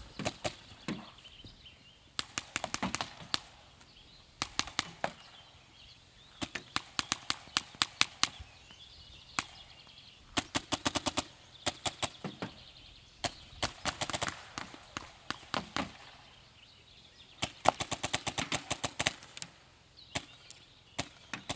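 Paintball markers firing in rapid volleys: sharp pops several a second in bursts of a second or so, with short pauses between bursts.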